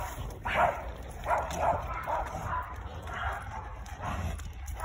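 Pomeranians barking in a run of short, high yaps, several a second.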